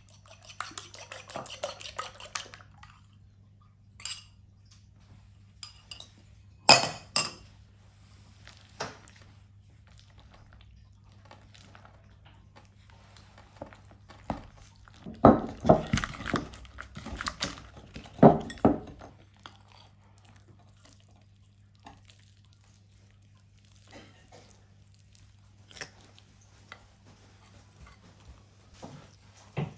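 Kitchen utensils and dishes clinking and knocking: a quick run of clicks at the start, scattered knocks, and a busier clatter about halfway through, over a faint steady low hum.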